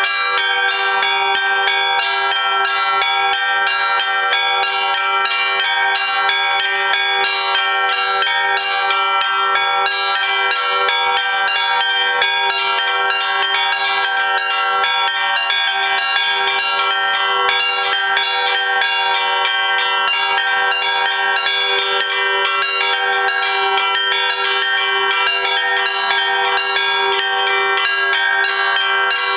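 Russian Orthodox church bells being rung continuously: quick, dense strikes of the small high bells over a steady lower ring.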